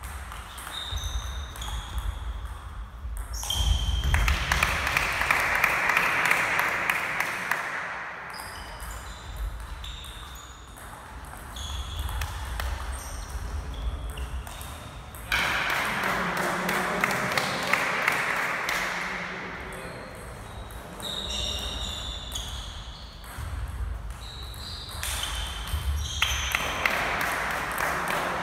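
Table tennis rallies: the ball clicking off the bats and the table in quick succession, each hit with a short high ping, in runs separated by pauses between points, with footsteps thudding on a wooden gym floor.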